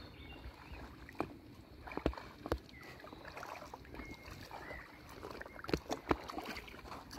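Kayak paddle dipping and splashing in calm river water as an inflatable kayak is paddled, with about five sharp knocks scattered through.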